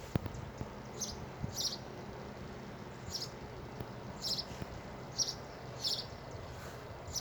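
A small bird giving short, high chirps, one roughly every second, over a steady outdoor hiss.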